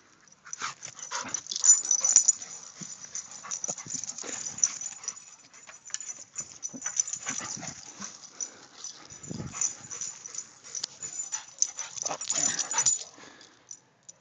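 Close-up noises from a Rottweiler nosing and chewing at grass and running about: irregular snuffling and breathing sounds.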